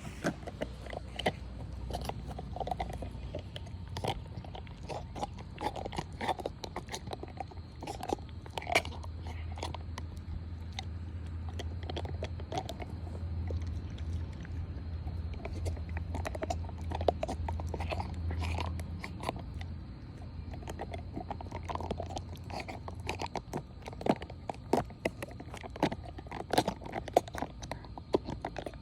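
Black Mouth Cur dog chewing and biting a toy: irregular crunches and clicks. A steady low hum sits underneath through the middle stretch.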